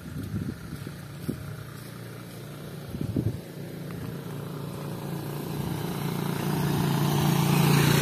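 A motor vehicle engine running steadily, growing louder over the last few seconds.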